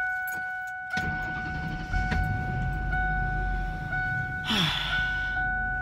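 A vehicle's engine starts about a second in and then idles steadily, while a steady electronic warning tone sounds from the dashboard.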